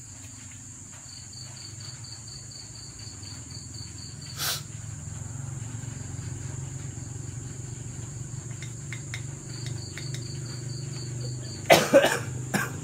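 Night insects chirring steadily, with a rapid pulsing trill of about seven pulses a second that comes twice, over a low steady hum. There is a knock about four seconds in, and a few louder knocks near the end, from handling the potted orchid.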